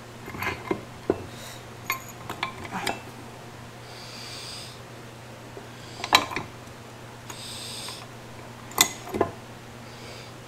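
Metal clinks and knocks as a differential carrier with its ring gear and bearing cups is set and seated into a cast aluminium Ford 8.8 IRS differential housing. A string of sharp knocks, the loudest about six and nine seconds in, over a steady low hum.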